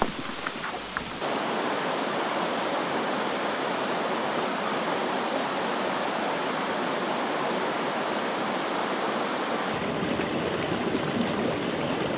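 Water of a stream rushing steadily, cutting in abruptly about a second in.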